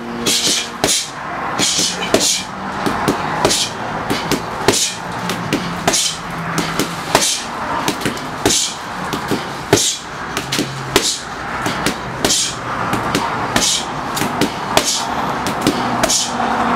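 Boxing gloves smacking into leather focus mitts during pad work, a steady run of sharp punches, one to two a second, in quick combinations.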